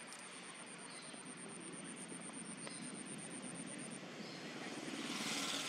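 Faint steady outdoor background noise with the drone of a distant engine, growing louder near the end, and a thin high steady tone over it that breaks off briefly near the end.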